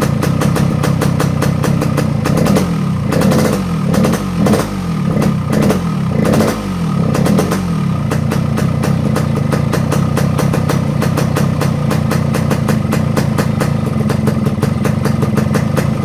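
Yamaha RX-King two-stroke single-cylinder engine idling with the rough 'ngorok' snoring exhaust note that its carburettor has been set to give. It is blipped about six times in quick succession from about 3 to 7 seconds in, then settles back to a steady idle.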